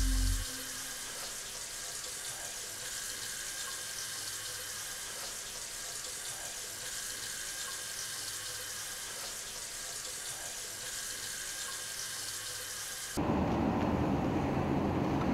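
Water running steadily, as from a bathroom tap. About 13 seconds in it cuts off abruptly to the low rumble of a car driving, heard from inside the cabin.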